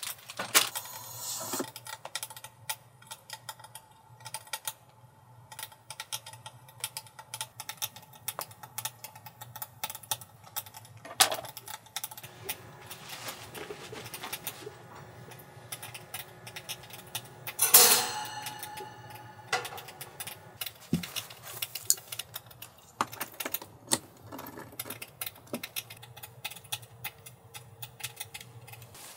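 Camping gear handled inside a tent: scattered clicks, knocks and rustles as things are set down and switched on, the loudest knocks about eleven and eighteen seconds in, over a low steady hum.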